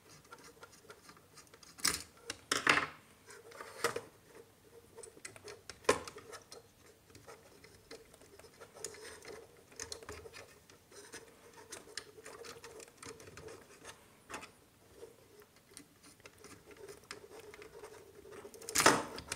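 Small screwdriver working the brass terminal screw of a 5-pin socket and a wire being handled on a plastic switchboard: scattered sharp clicks and light scratching as the neutral wire is fastened into the terminal.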